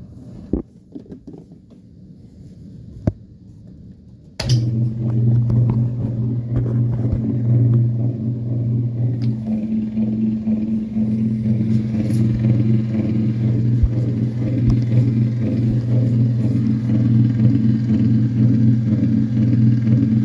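Washing machine on high-speed agitation: a couple of clicks, then about four seconds in a loud, steady buzz starts abruptly and holds. The buzzing is a fault that shows only on the high-speed agitation setting.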